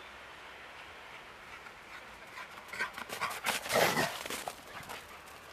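A dog panting and moving through the snow as it rushes up close, a run of short, breathy, scuffling sounds that is loudest about four seconds in.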